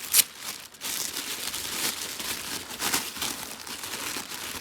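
Packaging being unwrapped by hand, crinkling and rustling with irregular crackles, and one sharper, louder crackle just after the start.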